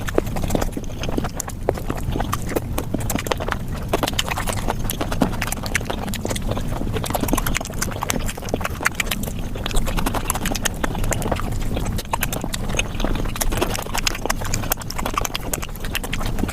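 Close-miked eating sounds played back sped up: chewing, lip smacks and mouth clicks from eating flatbread with curry, packed into a dense, continuous run of rapid clicks.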